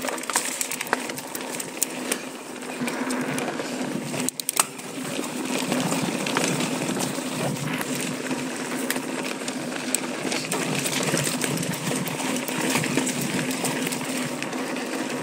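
Intense ACV mountain bike riding down a dry dirt singletrack: steady tyre noise over the dirt with frequent clicks and rattles from the bike over bumps, and a sharp knock about four and a half seconds in.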